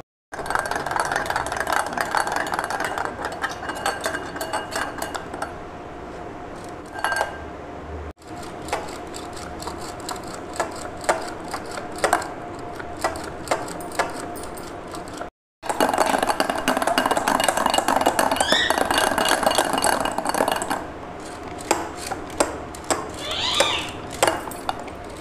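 Electric hand mixer running steadily, its motor whining while the beaters click and rattle against a glass bowl as they whip instant coffee, powdered sugar and oil into a thick paste. The sound breaks off for a moment twice.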